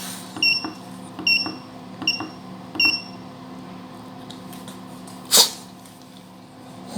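Control-panel buttons on a Glacio 85 L portable fridge freezer being pressed four times, about 0.8 s apart. Each press gives a click and a short high beep as the temperature is stepped down. The fridge runs with a steady low hum underneath, and a single short loud noise comes about two-thirds of the way in.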